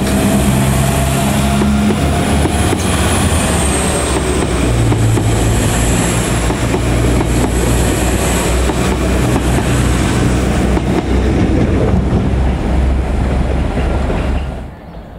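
A Northern Ireland Railways CAF diesel multiple unit moving past close by: steady diesel engine hum with wheel and rail noise and a faint high whine that dips in pitch about three seconds in. The sound cuts off shortly before the end.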